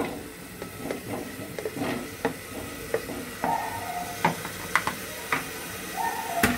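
Spatula scraping and tapping fried potato and carrot pieces off a plate into a hot aluminium pressure cooker, with irregular knocks as the pieces drop in and some sizzling.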